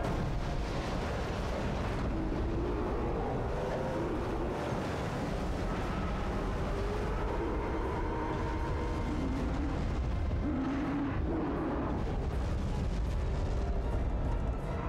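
Film sound effects: a continuous heavy rumble with churning, crashing water, at an even loudness throughout.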